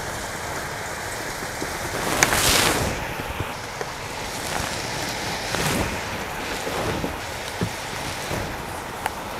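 Pot of cow-feet and corn soup boiling hard, a steady bubbling hiss. A louder rush of hiss swells about two seconds in, with smaller swells later.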